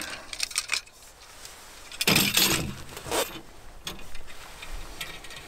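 Light metal clicks and a scraping rattle as the aluminium frame and steel blade of a Sven folding saw are handled and fitted together, the loudest scrape about two seconds in.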